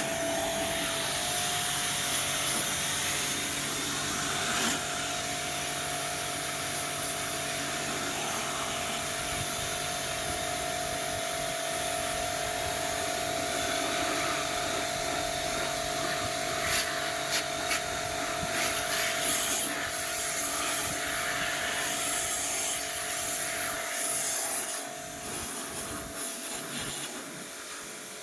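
Small electric pressure washer running with a steady whine, its water jet hissing as it sprays a window air conditioner; the whine fades out near the end.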